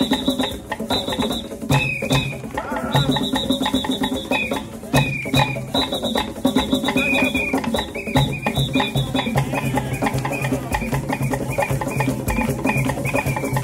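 African-style hand-drum ensemble playing a fast, steady rhythm on tall djembe-type drums. A low bass line runs under it, and short, high, steady notes repeat over the top.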